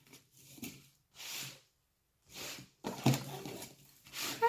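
A satin ribbon being untied and pulled loose from a cardboard gift box: a few soft, short swishes.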